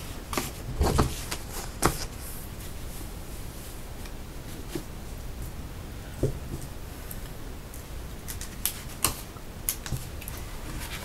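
Paper sheets being handled on a desk: a page slid away and a fresh sheet laid down and smoothed by hand, with short rustles and light taps about a second in and again near the end.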